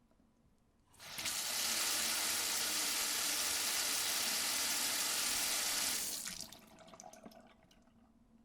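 Kitchen sink tap turned on: water runs into the sink in a loud steady rush for about five seconds, then is turned off, leaving a few drips and small clicks.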